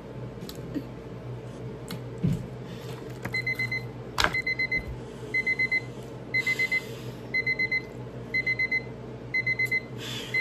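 Digital countdown timer hitting zero and sounding its alarm: quick groups of four high beeps, repeating about once a second, starting a few seconds in, which signals that the countdown has run out.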